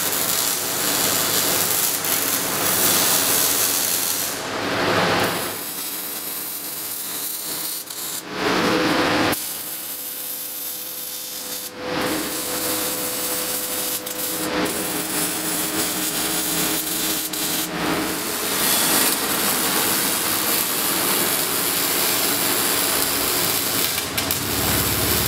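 Arc welding on steel roll-cage tubes: the welding arc runs in stretches of a few seconds, with short breaks between welds.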